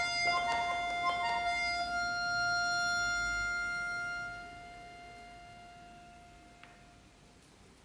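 Pigini piano accordion playing a few quick repeated high notes over a held low note, then a held two-note chord that fades gradually to almost nothing over the last few seconds.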